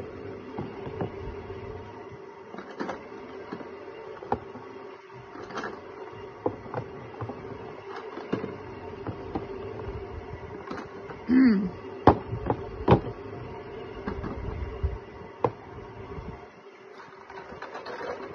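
Small plastic paint bottles clicking and knocking against each other and against a plastic drawer as they are set in one by one, over a steady low hum. A few sharper knocks come about twelve seconds in.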